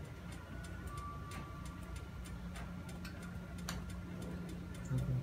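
Ampalaya cooking in a lidded frying pan on an electric hot plate, giving faint, irregular pops and crackles over a low steady hum.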